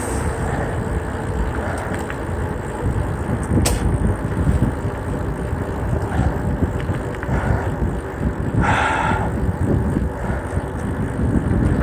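Wind rushing over the microphone and the rolling rumble of a mountain bike descending fast on pavement, with a single click a few seconds in and a brief louder hiss near the end.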